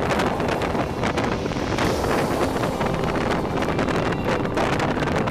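Wind buffeting a microphone held out of the window of a moving passenger train, over the train's steady running noise.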